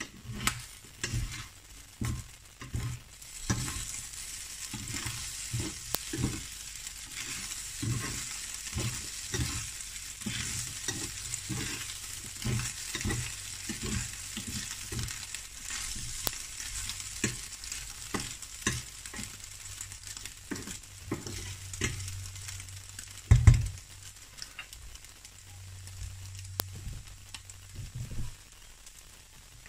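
Diced potatoes and scrambled egg sizzling in a frying pan while a spatula stirs them, scraping and knocking against the pan about once or twice a second. One louder knock comes about three-quarters of the way through.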